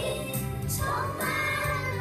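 A pop song with Mandarin singing over a steady backing track with a bass line.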